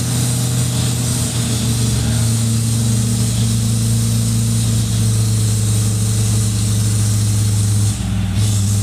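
Land Cruiser hardtop engine running steadily at a constant pitch, with a short dip near the end, while the laden hardtop sits stuck in mud waiting to be towed out.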